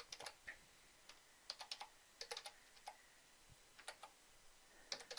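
Faint computer keyboard keystrokes, irregular, in short runs of a few clicks with pauses between, as a command is typed.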